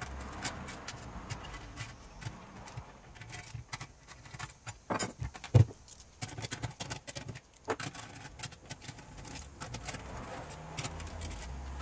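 Scattered clicks and light metal clinks of hand work on a Toyota factory radio as its metal side mounting brackets are taken off, with one sharper knock about halfway through.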